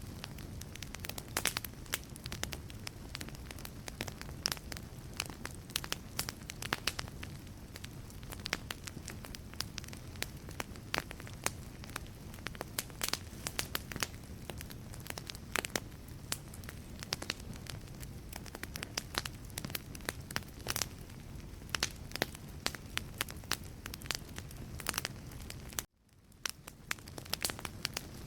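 Wood fire burning in a fireplace: logs crackling and popping in quick, irregular snaps over a low steady rumble of the flames. Near the end the sound cuts out abruptly and fades back in.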